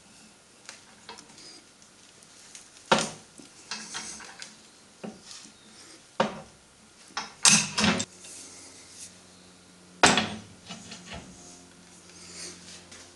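Steel handrail section being cold-bent by hand, giving irregular sharp metal clanks and scrapes. The loudest knocks come about three seconds in, in a quick cluster around seven and a half seconds, and again at ten seconds.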